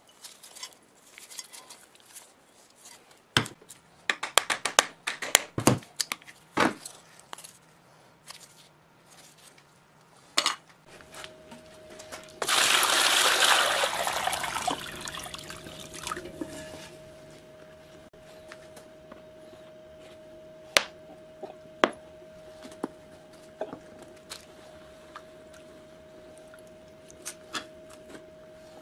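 Metal parts of an old electric motor handled, with a run of clinks and knocks, then water poured from a jug into a plastic tub for about three seconds. A faint steady hum continues after the pour, with an occasional click.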